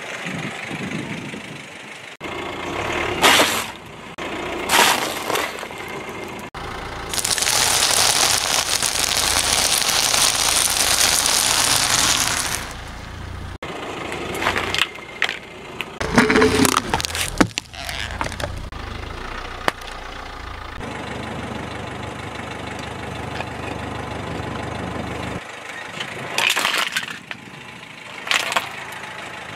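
A car tyre rolling slowly over food items and crushing them in a series of short takes: sudden cracks and crunches near 3 and 5 seconds, near 16–17 seconds, and again near the end. A long loud hiss runs from about 7 to 12 seconds. The car's engine runs low underneath.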